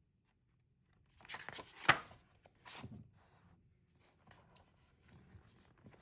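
Paper sketchbook pages being handled and turned: rustling and brushing of paper, loudest just under two seconds in, then fainter handling sounds.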